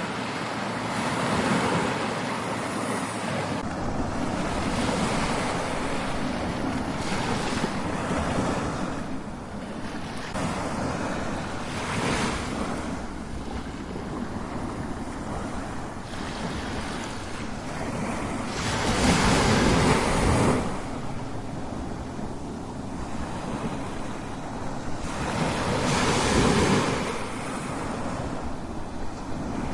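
Strong ocean waves crashing as continuous surf, with louder breakers swelling every few seconds; the biggest comes about two-thirds of the way through.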